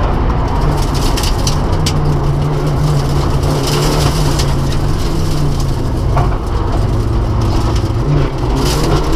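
Rally car engine running hard at high revs, heard from inside the cabin over road and tyre noise, with a few sharp ticks in the first couple of seconds. The revs dip briefly about six seconds in and climb again near the end.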